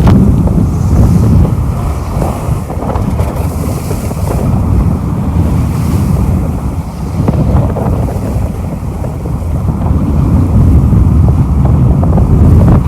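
Wind buffeting the microphone over waves rushing along a sailing catamaran under way at sea: a loud, deep rumble that swells and eases in gusts.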